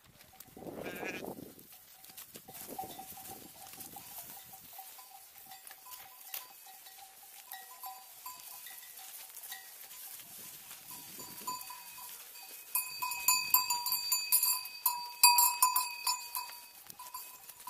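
Bells on a flock of ewes ringing steadily as the sheep walk, with hooves scuffing and clicking on the dry trail. A sheep bleats about a second in, and the bells jangle louder and faster from about two-thirds of the way through as the flock presses close past.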